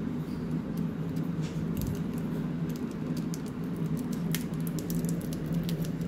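Rose-ringed parakeet biting and tearing at a plastic toffee wrapper held in its foot: irregular small crinkles and beak clicks, over a steady low hum.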